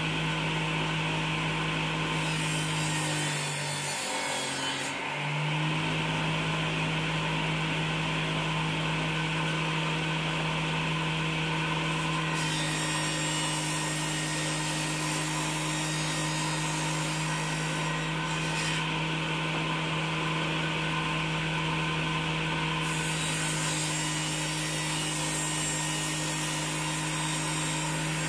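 Circular saw bench running with a steady motor hum as its large blade cuts tenons in linden-wood door stiles fed through on end. The cutting hiss comes and goes as each pass is made, and the motor briefly pulls down under load a few seconds in.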